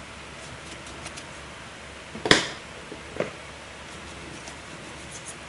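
Two sharp knocks over a steady background hiss: a loud one about two seconds in and a softer one a second later, with a few faint ticks between.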